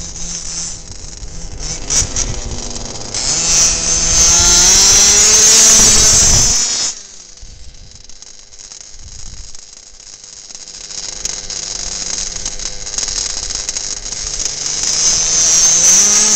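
HPI Baja 5T's small two-stroke gas engine running as the RC truck is driven: it revs up hard with rising pitch a few seconds in, cuts back suddenly about halfway, then runs quieter and builds again, revving up near the end.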